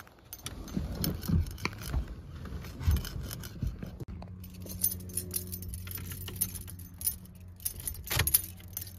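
Keys jangling and clicking against an Oldsmobile's steering column as the ignition key is handled. A low steady hum comes in about four seconds in.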